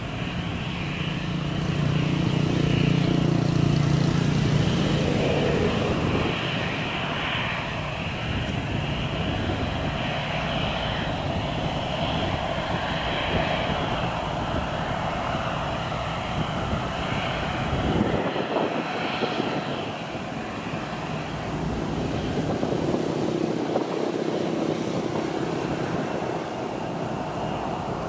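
Airbus A319's CFM56 turbofan engines running at taxi power: a steady jet whine over a low hum, which swells about two seconds in and eases off again around six seconds.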